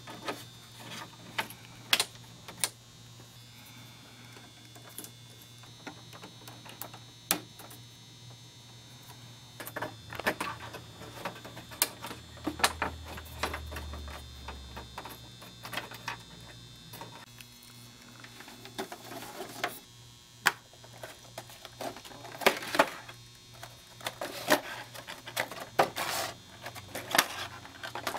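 Small plastic parts of a Hot Toys 1/6-scale Tumbler model clicking and tapping as its air flaps are fitted by hand: scattered sharp clicks that come thicker in the last third, over a faint steady low hum.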